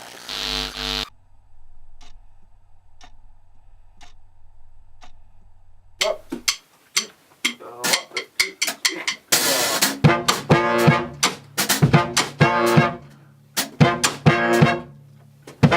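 A small brass band with drums starts playing. After a brief stretch of quiet with faint ticks about once a second, drum hits and brass come in about six seconds in. A crash a few seconds later leads into the full band playing with a steady beat.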